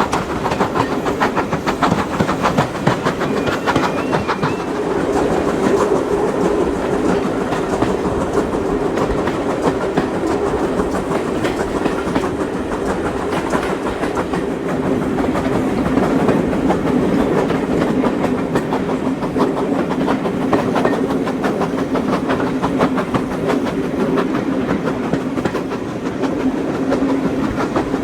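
Passenger train running along the line: wheels clicking and rattling over the rails, with a steady hum.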